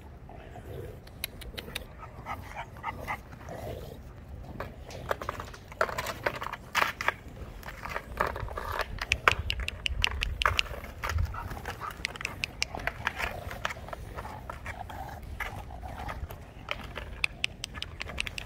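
Puppies playing: short whines and growls from the puppies, over a steady run of clicks and crackles from a plastic bottle being nosed, dragged and chewed on paving stones.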